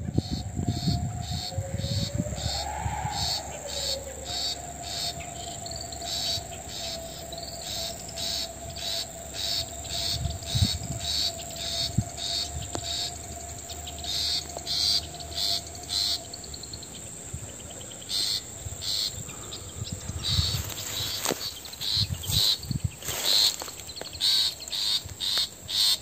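Insects chirping in an even series of short high pulses, about two a second, with a thin steady tone underneath that fades out about sixteen seconds in.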